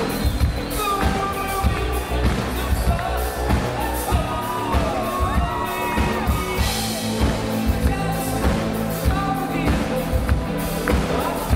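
Live synth-pop band playing: a male lead vocal sung into a microphone over drums, electric guitar and a steady beat, amplified through a concert PA.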